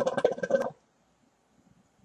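Hookah water bubbling rapidly in the base as smoke is drawn through the hose, cutting off suddenly under a second in.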